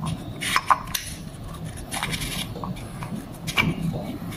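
Metal clicks and scraping from the rotor and spring-loaded vanes of a WK-180 rotary vane vacuum pump as they are pressed by hand into the pump cylinder. There are a few sharp clicks at irregular intervals.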